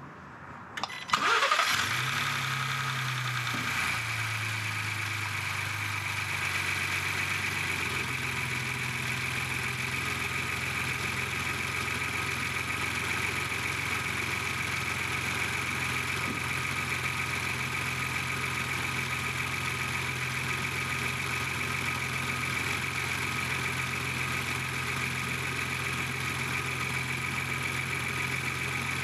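Ford Bronco's 2.7L twin-turbo EcoBoost V6 starting about a second in: a short crank, then it catches and runs at a raised idle that steps down twice before settling into a steady idle with a faint high whine.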